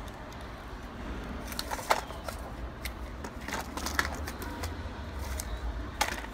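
Scattered sharp clicks and knocks of handling noise, the loudest about two, four and six seconds in, over a low steady background hum.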